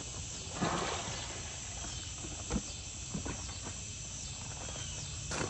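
A steady high buzzing of insects in the background, with a few short knocks and bumps as a puppy is handled into a plastic tub.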